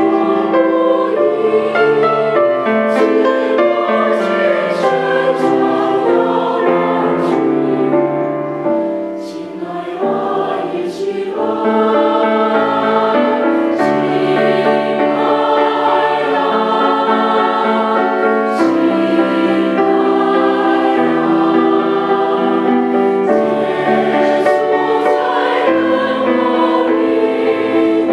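Mixed church choir of men and women singing together in sustained, held chords, growing softer for a moment about nine seconds in.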